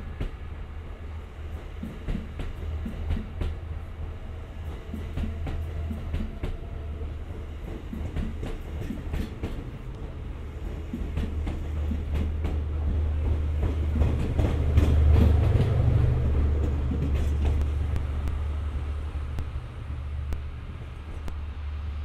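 E001 Train Suite Shikishima passing in diesel mode: a steady low drone from its diesel generator engines with irregular clicks of wheels over rail joints, growing loudest about two thirds of the way in and then easing.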